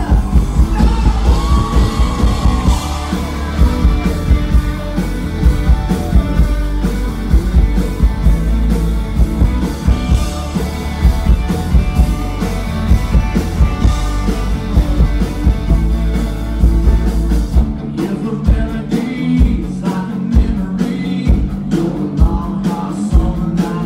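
Live country-rock band playing: drums, bass and guitars with singing. About 18 seconds in the low bass drops away, leaving sharp separate hits over the rest of the band.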